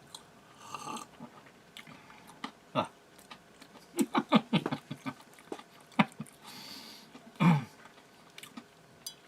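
A man grunting and groaning in distaste after a sip of bitter beer, with mouth noises and a sharp breath out. There are a few short falling grunts, a quick cluster of them about four seconds in, and one more groan near the end.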